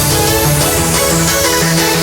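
Electronic dance music, a fast track in the happy hardcore style with a pulsing synth bass line and bright synth chords.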